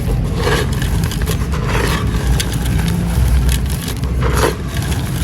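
Dry sand-cement chunks being crumbled, with gritty crunching and small crackles, and three louder crunches about half a second, two seconds and four and a half seconds in. A steady low rumble runs underneath.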